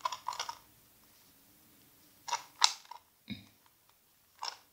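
Plastic pieces of a Ghost Barrel 3x3 shape-mod twisty puzzle clicking and scraping as its layers are turned by hand, in four short bursts, the loudest about two and a half seconds in.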